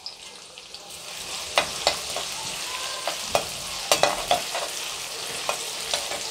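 Finely chopped onion frying in hot oil in a metal kadai, with a steady sizzle that grows about a second in. A perforated metal spatula stirs it, clicking and scraping against the pan now and then.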